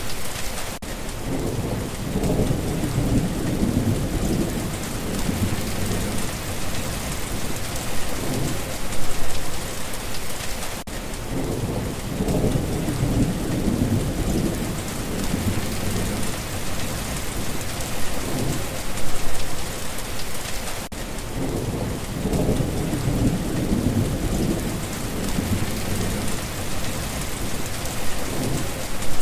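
Steady heavy rain pattering on a surface, with low rolls of thunder swelling and fading about every ten seconds.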